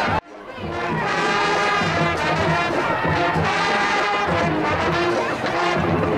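Brass band music playing, with the sound cutting out briefly just after the start.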